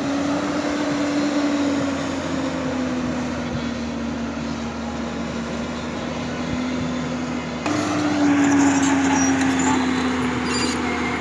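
JCB tracked excavator's diesel engine running under working load, with a pitched whine that rises and then slowly sinks as the machine works, rising again about eight seconds in.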